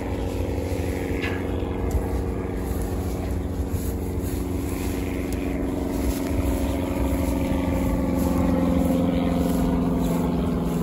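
Steady engine drone holding one pitch, growing a little louder in the second half, over a low rumble.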